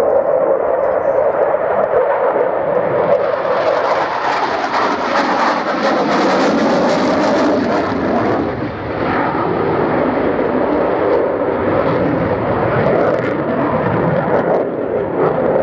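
Saab JAS 39 Gripen fighter's jet engine running loud in a flying display, the noise swelling to its loudest with a hissing edge between about three and eight seconds in as it passes, then easing to a steady roar.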